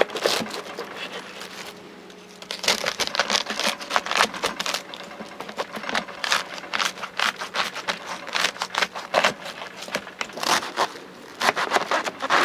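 A folding knife cutting through a crisp head of napa cabbage on a wooden board: a quick, irregular run of crunches and snaps as the blade splits the leaves, with a short lull about two seconds in.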